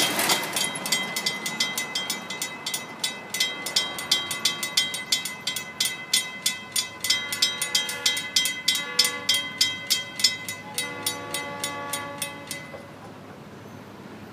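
Railroad grade-crossing warning bell ringing at about three strikes a second while the gate arm lowers, falling silent near the end as the gate comes down. Under it a distant approaching locomotive horn sounds in long blasts, and a pickup truck towing a trailer passes across the crossing at the start.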